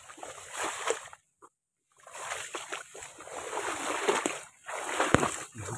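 Footsteps wading through shallow floodwater and tall wet grass: splashing and rustling vegetation, with one sharp click about five seconds in. The sound drops out for under a second just after the start.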